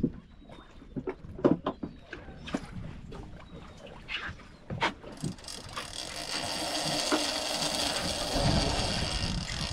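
A big game reel's drag buzzing steadily as line is pulled off under a hooked bluefin tuna, setting in about five seconds in. Scattered clicks and knocks of the rod and reel come before it.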